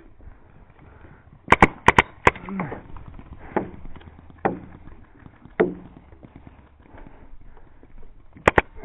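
Paintball marker shots: four sharp pops in quick succession about one and a half seconds in, single pops spread over the next few seconds, and a quick pair near the end.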